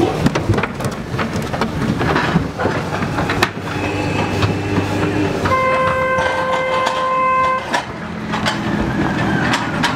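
Pigs packed into a livestock transport trailer squealing and grunting in distress, with knocking on the trailer's metal and a steady low engine rumble. A steady high-pitched tone is held for about two seconds past the middle.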